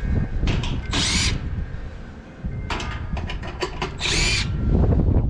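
A cordless power driver running in two short bursts about three seconds apart, its whine rising and falling, with small clicks of handling between them. Wind buffets the microphone underneath.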